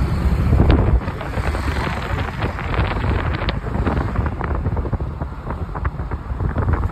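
Wind buffeting the microphone over a steady rumble of road traffic, heaviest in the first second and then easing.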